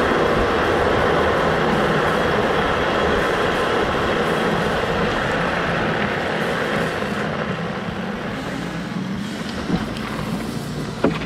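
Two-stroke kart engines running, a steady drone that slowly fades, with a couple of sharp knocks near the end.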